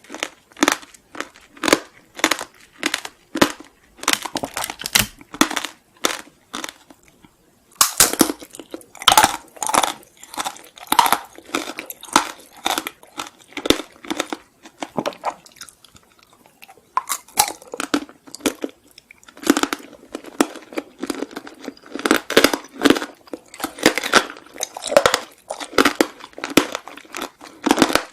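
Close-miked chewing of crunchy food, with crisp crunches repeating about twice a second and brief pauses about seven seconds in and again around the middle.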